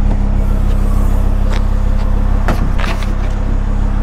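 A Ford Focus ST's turbocharged 2.5-litre five-cylinder engine running steadily through a resonator-deleted exhaust, a constant low drone. A few sharp knocks stand out over it in the second half.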